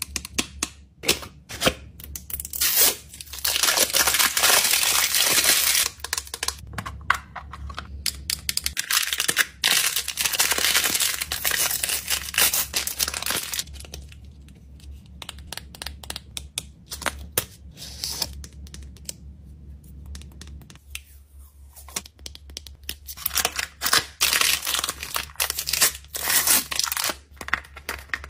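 Packaging being torn open and crinkled by hand: three long stretches of ripping, with quieter rustling and sharp clicks between them.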